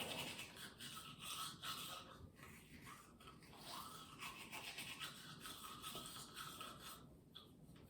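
Faint scrubbing of a toothbrush on teeth in quick, uneven strokes, thinning out about seven seconds in.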